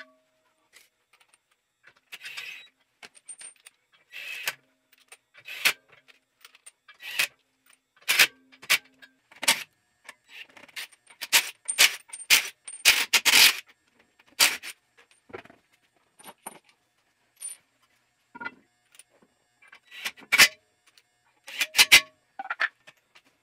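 Irregular metallic clinks, knocks and jingles of lug bolts, a wrench and an alloy wheel being handled during a wheel change, with a few short scrapes; a dense run of clicks near the middle.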